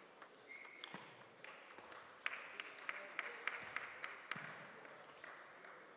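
Table tennis ball clicking in a quick run of about seven light taps, roughly three a second, starting about two seconds in, with a short high squeak near the start.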